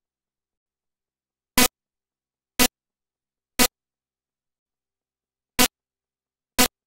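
Dead silence broken by five short, sharp blips about a second apart, one beat skipped near the middle: brief fragments of sound breaking through an otherwise silent audio track, a glitch in the upload's sound.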